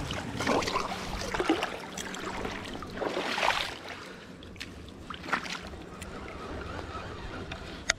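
Rustling and handling noise from dry grass and leaves, in two short bursts, followed by a few sharp clicks near the end.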